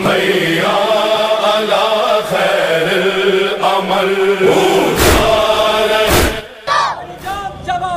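A chanted religious anthem: voices hold long, sustained chanted lines, cut by two heavy thuds about five and six seconds in. Shorter, clipped chanted phrases begin about seven seconds in.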